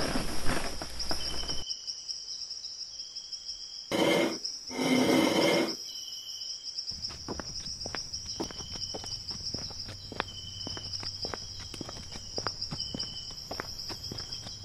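Steady high chirring of crickets, with many light clicks and knocks scattered through it. A louder, clicky noise at the start stops about a second and a half in, and two louder pitched sounds come around four and five seconds in.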